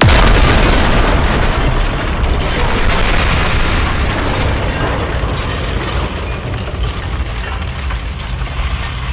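A large explosion sound effect: a sudden blast at the start, then a long rumble that slowly fades.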